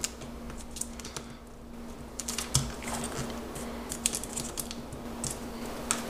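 A sheet of origami paper being folded and creased by hand: a scatter of small crisp paper crackles and taps, more of them in the second half, over a faint steady hum.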